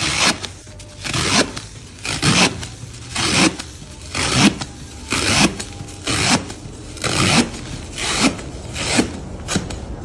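Tatami knife sawing through the straw edge of a tatami mat: rasping strokes about once a second.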